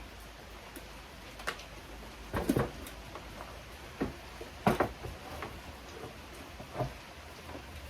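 Scattered sharp plastic clicks and knocks as clipped-on trim is prised off a headlight housing, the loudest a cluster about two and a half seconds in and another just under five seconds in.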